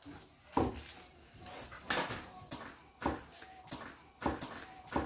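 Dough being rolled out with a rolling pin: a short, light knock about once a second as the pin is worked back and forth over the board.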